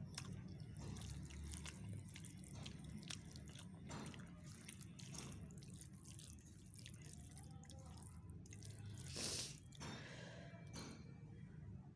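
Faint wet squishing and small clicks of fingers mixing and scooping rice on a steel plate, with a louder brief rush of noise about nine seconds in, over a low steady hum.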